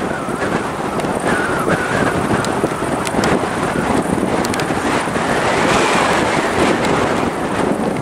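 Jet engines of an Airbus A320-family airliner rolling down the runway, a loud steady rush with a faint engine whine, and wind buffeting the microphone.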